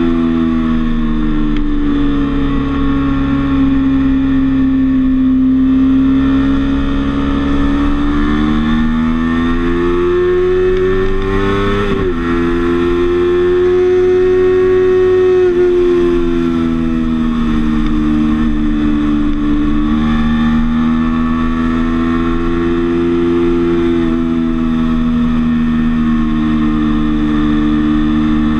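Sport motorcycle's engine running hard on track, heard from a handlebar-mounted camera, its pitch rising and falling with the throttle through the corners. About twelve seconds in, the note breaks and drops suddenly, as at a gear shift.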